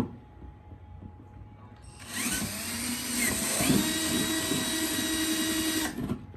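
Electric drill starting up about two seconds in and running steadily for about four seconds while boring an air-vent hole in a bucket, then stopping abruptly.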